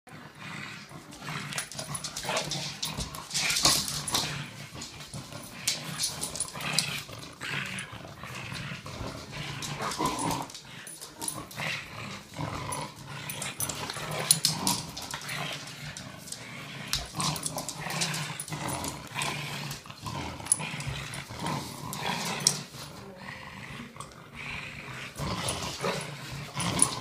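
Two dogs, an American bulldog and a red heeler (Australian cattle dog), growling steadily while they play-fight and tug over a toy, with scuffling and many sharp clicks throughout.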